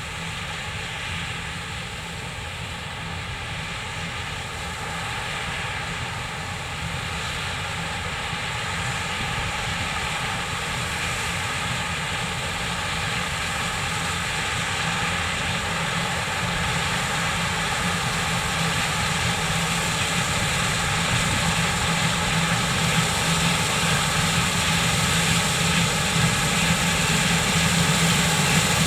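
Heavy farm machinery's diesel engine running steadily, growing gradually louder as it draws nearer.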